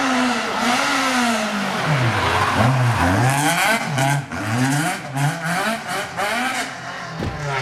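Peugeot 205 rally car's engine revving hard through a tight hairpin, its pitch rising and falling several times as the throttle is worked. The sound fades somewhat near the end as the car pulls away up the hill.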